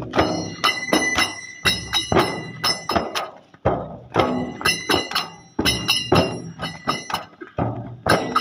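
Chang, large Rajasthani frame drums, beaten by hand in a brisk, repeating dance rhythm of sharp strokes, with a high ringing held over the strokes.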